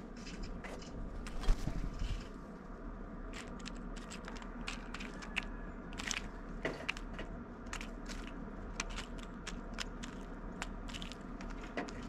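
Blue jay pecking and rummaging through black sunflower seeds and peanuts in a stone bowl feeder: irregular dry clicks and crunches of shifting seed and beak taps.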